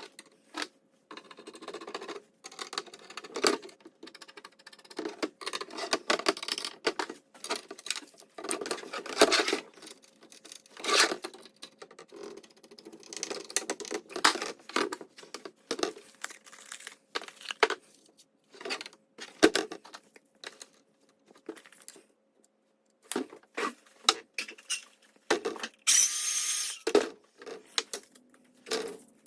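Hands handling small parts and packaging: irregular clicks, knocks and rustling, with one longer rasping noise lasting about a second near the end.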